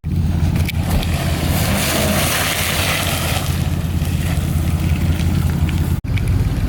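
Off-road 4x4's engine running steadily at low revs on a dirt trail, with a hissing rush of noise in the middle. The sound drops out abruptly for an instant about six seconds in, then resumes.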